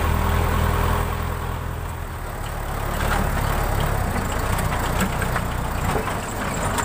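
Backhoe loader's diesel engine idling steadily, with a few light clicks in the middle.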